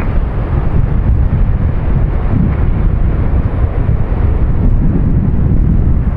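Steady, loud, low rumble of jet airliner engines, with wind buffeting the microphone.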